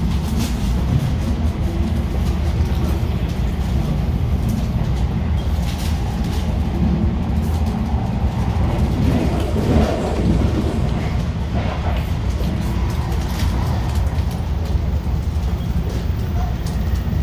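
MARTA Hitachi CQ311-series rapid-transit railcar running between stations, heard from on board: a steady low rumble of wheels on rail with scattered clicks from the track.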